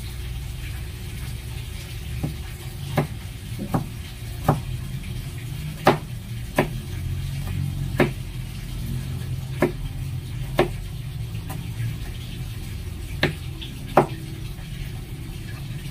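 Large kitchen knife chopping young bamboo shoots on a plastic cutting board: about a dozen sharp, irregularly spaced knocks of the blade hitting the board.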